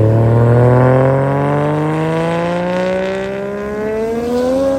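Car engine accelerating hard under a long pull, its pitch rising steadily for nearly five seconds, then dropping off suddenly at the end.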